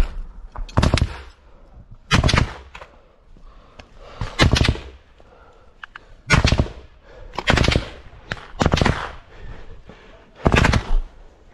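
Automatic gunfire in about seven short bursts, each of a few rapid shots, coming every one to two seconds.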